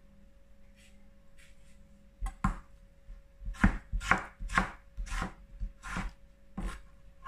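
Chef's knife slicing through tomatoes and knocking on a cutting board: a couple of strikes about two seconds in, then a steady run of six more about every half second.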